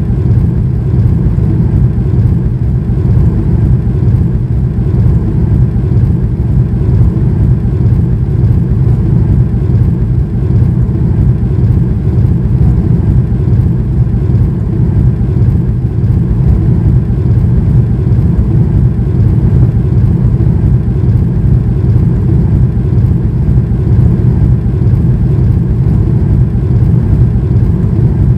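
Cabin noise of a Boeing 737-800 taxiing, heard from inside the cabin over the wing: a loud, steady low rumble from its CFM56-7B engines at taxi power and the aircraft rolling on the taxiway.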